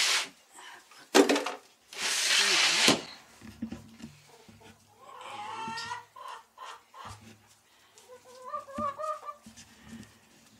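Chickens in a coop clucking: a drawn-out call about halfway through and a quick run of short, wavering clucks near the end. Loud harsh rasping noises fill the first three seconds.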